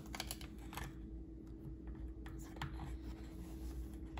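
A plastic measuring scoop digging and scraping in a plastic jug of granulated cane sugar: a few short scrapes and light clicks, mostly in the first second and again around the middle.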